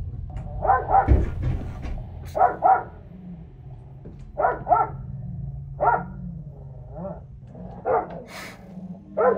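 A dog barking, mostly in quick pairs with pauses of a second or two between them. The barking is alarmed.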